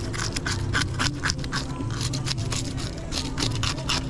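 Mangrove snapper being cleaned: quick repeated scraping strokes, about four or five a second, over a steady low hum.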